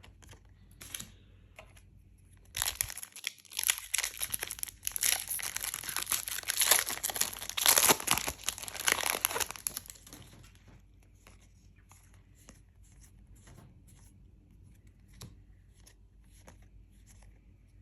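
A foil booster-pack wrapper being torn open and crinkled, for about eight seconds from a couple of seconds in. After that come faint scattered clicks of trading cards being handled and flicked through.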